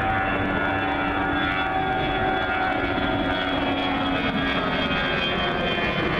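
Airbus A320-212 jetliner's twin CFM56 turbofan engines at takeoff power during its climb-out, passing nearly overhead: a steady roar laced with several whining tones that slide slowly down in pitch.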